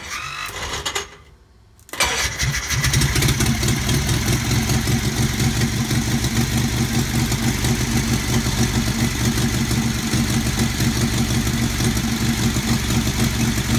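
Onan commercial engine cranked by its starter, jumped by hand in place of the solenoid: a short burst of cranking, a brief pause, then cranking again until it catches about three seconds in. It then runs steadily with an even, rapid beat, on a battery-only total-loss hookup with just the coil and an electric fuel pump wired.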